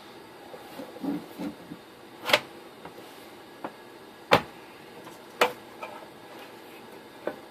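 Scattered sharp clicks and knocks of a network switch's housing and parts being handled and fitted back together, the three loudest about two, four and five and a half seconds in.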